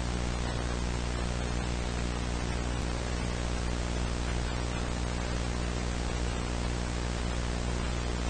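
Steady broadcast static: an even hiss over a low buzzing hum, unchanging.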